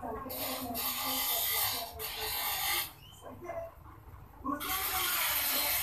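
Gram-flour batter dropped by hand into hot oil in an iron karahi, the oil sizzling loudly around the frying dumplings. The sizzle eases off about three seconds in and surges again as more batter goes in.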